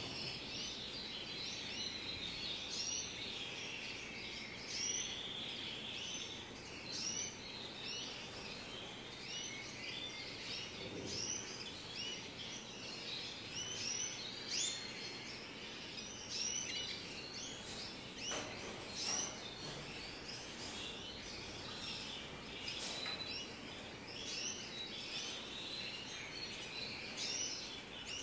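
Canaries chirping and trilling in a flight cage, many short calls overlapping without a break.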